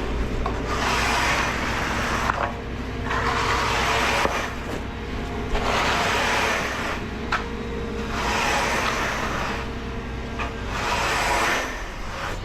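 Straight-edge screed dragged back and forth across wet concrete, a long scraping swish roughly every one and a half seconds, over the steady drone of an engine running.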